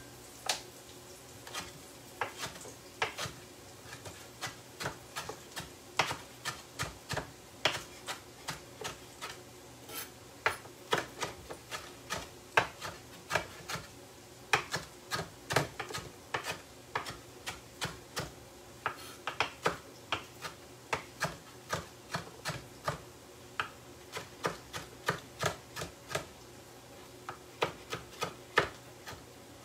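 Knife chopping parsley on a wooden cutting board: a run of sharp, uneven knocks of the blade on the board, two to four a second, with brief pauses.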